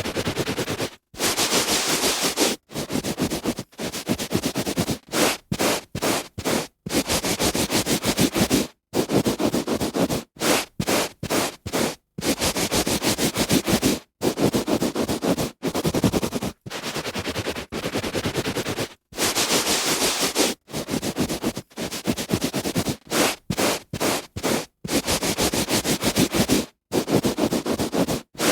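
A hand rubbing back and forth on carpet, a dry scratchy hiss of fibres in strokes of uneven length, some short and quick, some a second or two long, with brief gaps between.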